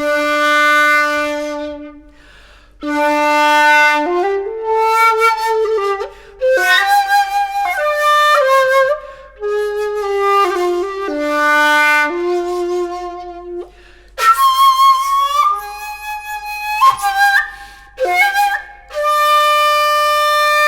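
A 1 shaku 8 sun shakuhachi, the Senshu Shakuhachi Kobo Original Type A, played solo in short breathy melodic phrases with brief pauses between them. It holds a low note at the start and climbs into the high register later, with sharp note attacks.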